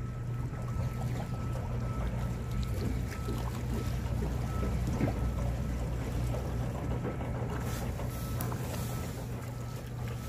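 Boat engine running steadily with a low hum, under a haze of wind and water noise.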